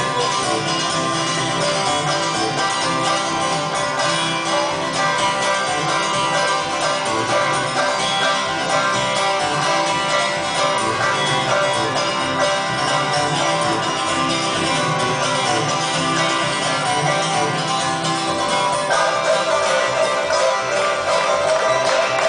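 A banjo played clawhammer style: a continuous old-time tune of rapidly picked and frailed notes.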